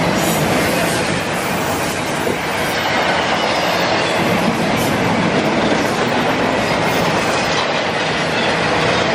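Double-stack intermodal container train rolling past close by: the steady, loud rolling noise of steel wheels on the rails as the well cars go by.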